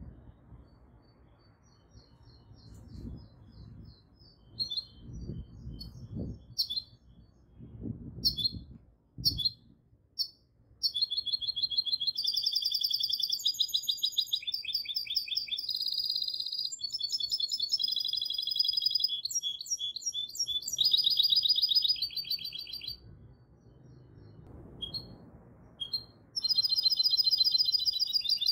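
Caged goldfinch hybrid singing. It starts with scattered short chirps and call notes over a dull low rumble, then breaks into a long run of fast, repeated trills for about twelve seconds. After a brief pause with a couple of chirps, the trilled song starts again near the end.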